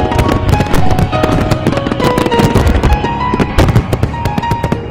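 Fireworks bursting and crackling in quick, irregular succession over background music with held notes.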